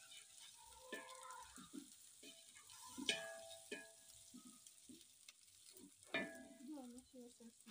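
Wooden spoon stirring food in a large aluminium pot over a wood fire, with faint sizzling from the pot. A few sharp knocks of the spoon against the pot ring briefly, about a second, three seconds and six seconds in.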